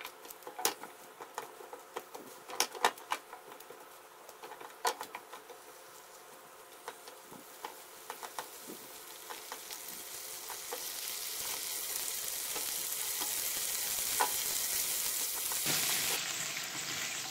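Bok choy sizzling in a frying pan as it is turned with silicone-tipped tongs. There are light clicks of the tongs against the pan in the first few seconds, then the sizzle grows steadily louder.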